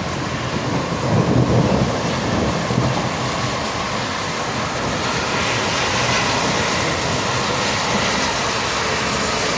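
Heavy rain pouring in a steady hiss during a thunderstorm, with a low rumble about a second in.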